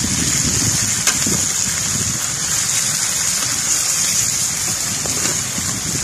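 Small wild birds and chopped onion frying in oil in a metal pan over a wood fire: a steady sizzle, with a single sharp knock of the slotted spatula against the pan about a second in.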